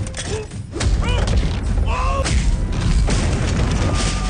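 Dubbed fight-scene sound effects: repeated thuds and booms over a heavy low rumble, with two short pitched cries about a second and two seconds in.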